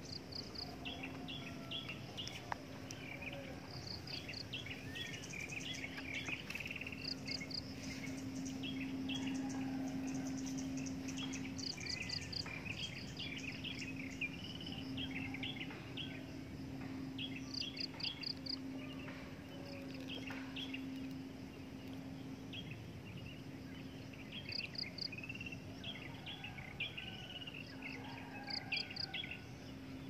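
Several birds chirping and whistling, with a quick run of three or four high pips repeating every few seconds, over a low steady hum.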